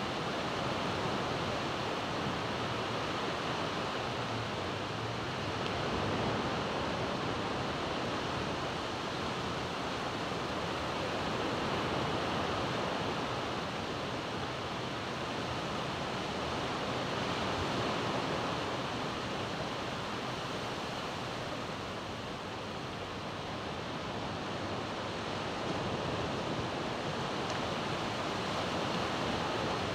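Sea surf washing onto a flat sandy beach: a steady rush of breaking waves that swells and eases every several seconds.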